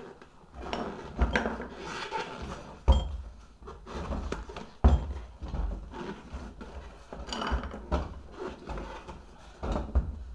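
Old rubber inner tube being pulled out of a motorcycle's knobby tyre by gloved hands: rubber scuffing and rustling against the tyre and rim, with several sharp knocks, the loudest about three and five seconds in.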